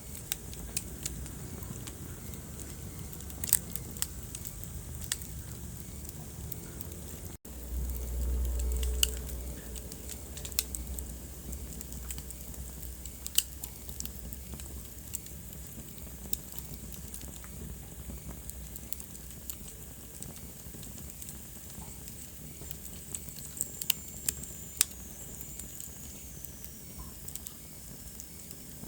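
Wood fire burning in a fireplace: steady low rumble with scattered sharp crackles and pops. About seven seconds in, the sound drops out for an instant and a low rumble swells for a couple of seconds; near the end a faint high whistle falls in pitch.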